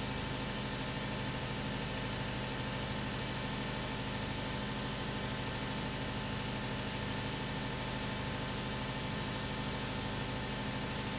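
A steady mechanical hum with a low drone and an even hiss over it, unchanging throughout, of the kind an idling engine or running machine makes.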